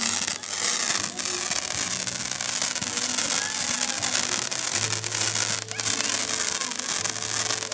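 Fireworks crackling and fizzing in a dense, continuous hiss, with a few sharp pops, over background music with held low notes.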